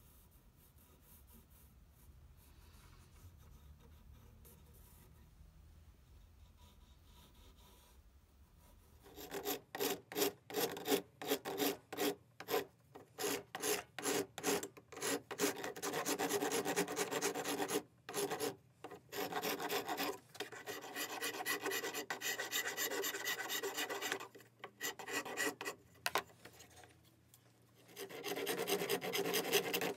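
Hand file rasping along the edge of a walnut saw handle blank. After a quiet start, quick short strokes begin about a third of the way in, then give way to longer, steadier strokes with brief pauses between them.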